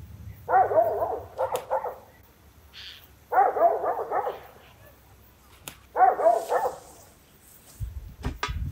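A dog barking in three quick bouts of several barks each, a second or so apart. A few low thumps follow near the end.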